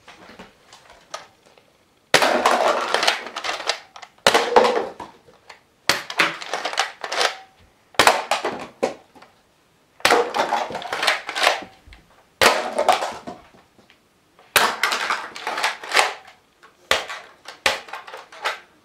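Nerf blaster shots knocking down stacked plastic cups: about nine bursts of plastic cups clattering and tumbling, each starting suddenly and dying away over a second or two, roughly every two seconds.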